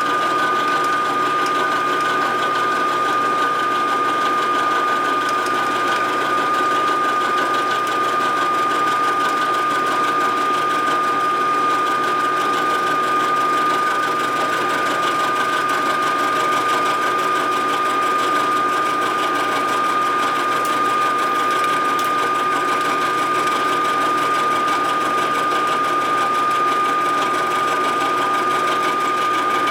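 Vertical milling machine with a spiral cutter boring into an aluminium Harley-Davidson knucklehead crankcase: a steady machining noise with a constant high-pitched tone, unchanging throughout.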